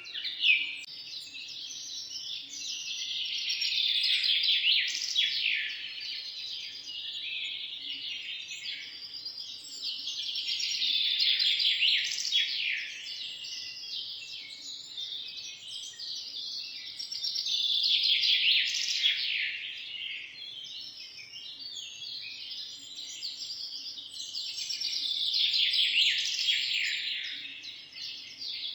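A chorus of many small birds chirping and twittering rapidly, swelling louder and fading back about every seven seconds.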